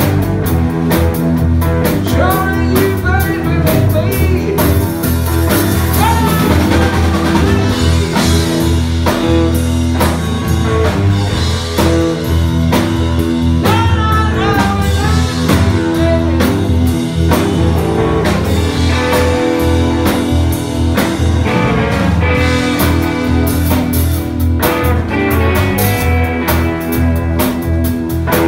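Live blues-rock band playing loud and without a break: a lead electric guitar line with bent, gliding notes over bass guitar and a drum kit.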